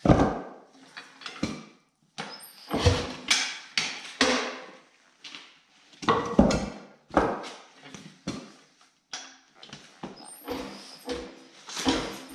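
Irregular knocks and clunks of a motorcycle wheel and knobby tire being handled and turned over on a wooden board, with the steel arm of a homemade hitch-mounted bead breaker set against it. Some of the hits ring briefly.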